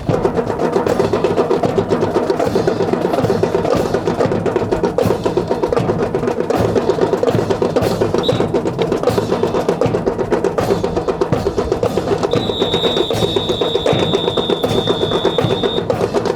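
Fast, steady rhythmic clatter of a drill team's ceremonial rifles being slapped, spun and grounded in unison. Near the end a high, steady whistle-like tone is held for about three seconds.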